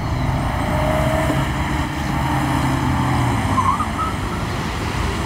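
Road traffic on a busy city street: car engines running with a steady low rumble and hum.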